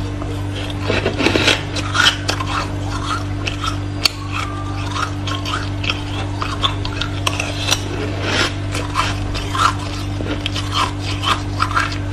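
Freezer frost being crunched and scraped: quick, irregular crisp crunches throughout, over a steady low hum.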